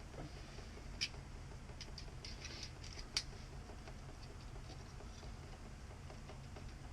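Light clicks and scrapes of hand tools working on an outdoor faucet, with two sharper clicks about one and three seconds in.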